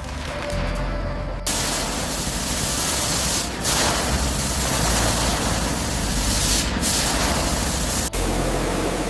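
Loud spraying hiss that starts about a second and a half in, breaks off briefly twice, and cuts off sharply near the end.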